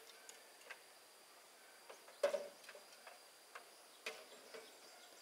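Light clicks and hollow knocks of bamboo poles against a bamboo deck, irregular, with the loudest knock about two seconds in and another about four seconds in.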